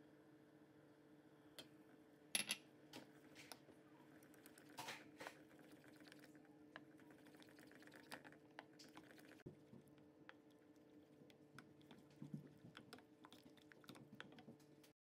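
Faint clicking and scraping of a wooden spoon stirring molokhia in a stainless steel pot, with one sharper clink a little over two seconds in. A steady low hum runs underneath, and the sound cuts off abruptly just before the end.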